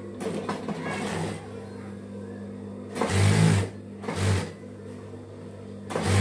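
Industrial sewing machine stitching in short runs: a longer run at the start, then three louder bursts about three, four and six seconds in.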